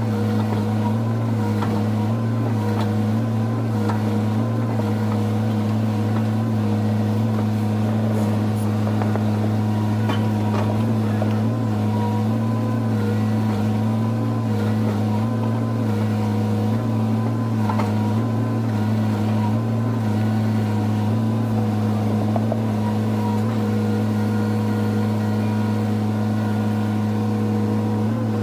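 Excavator's diesel engine running at a steady speed, a constant low hum, with a few faint knocks along the way.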